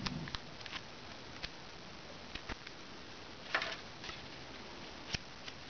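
Scattered small clicks, taps and a brief paper rustle from hands handling a folded paper pinwheel and a thin wooden stick, with a short cluster of crinkles about three and a half seconds in.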